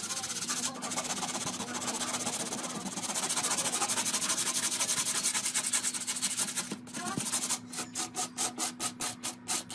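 Sandpaper rubbed by hand along the edges of a slatted wooden roof: a rapid, continuous scratchy rubbing that breaks into separate strokes at about four a second near the end.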